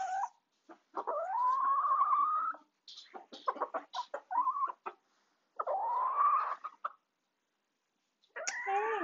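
Chickens calling: two drawn-out calls that rise in pitch, each about a second and a half long, with a run of short clucks and quick taps between them. Another burst of clucking starts just before the end.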